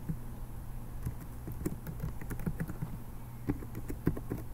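Typing on a computer keyboard: an irregular run of quick key taps, over a steady low hum.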